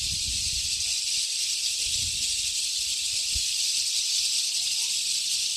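Steady high-pitched insect chorus, a continuous dense shrill drone, with a couple of faint low bumps partway through.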